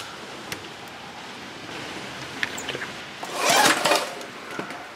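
Briggs & Stratton lawn mower engine turned over once, a burst of under a second about three seconds in. The spark plug is out and grounded against the engine to test a newly fitted ignition coil for spark.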